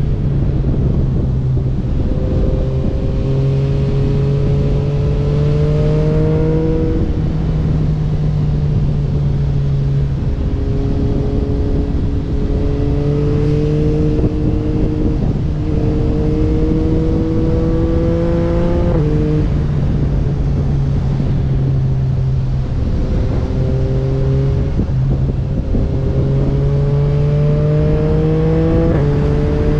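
Motorcycle engine pulling under load. Its note climbs steadily, then drops suddenly at each of several gear changes, and it runs over a steady rush of wind and road noise on the camera.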